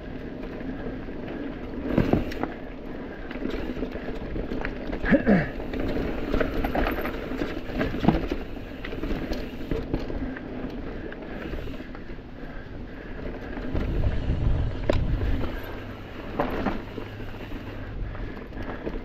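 Mountain bike riding fast down a dirt singletrack: steady tyre and frame rattle, with sharp knocks over bumps about 2, 5, 8 and 16 seconds in. A low rumble of wind on the bars-mounted microphone comes around 14 seconds in.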